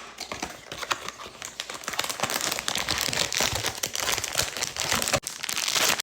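Blind box packaging being opened: a plastic foil bag and box crinkling and rustling in dense rapid crackles, with a short break about five seconds in.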